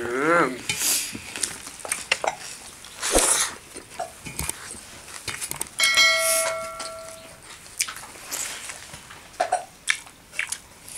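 Hand-eating at the table: fingers working rice on metal plates, with chewing and small clicks. A child's high voice sounds briefly at the start, and about six seconds in a short bell-like ding rings out, the sound effect of a subscribe-button animation.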